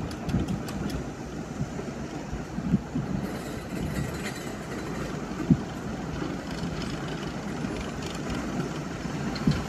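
R32 subway train rolling slowly along the track: a steady low rumble with a few single thumps.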